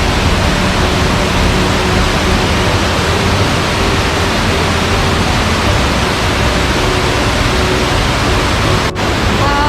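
Waterfall cascading over rock: a loud, steady rush of water, broken by a brief dip near the end.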